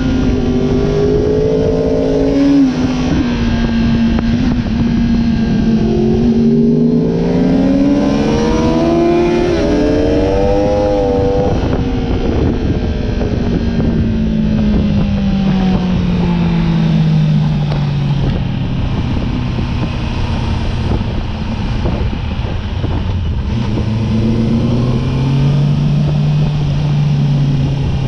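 Honda sportbike engine heard from on board over steady wind noise. The revs climb for several seconds, drop off and ease back as the bike slows, hold steady, then build again near the end.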